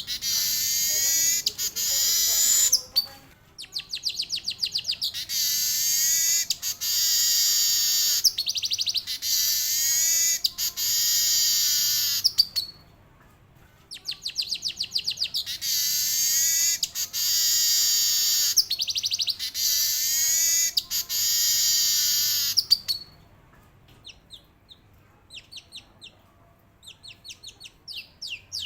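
Male manyar (weaver bird) singing: bursts of rapid ticking notes that run into long, buzzy, wheezy rolling trills. There are two long bouts with a brief pause between them, then only scattered faint ticks near the end.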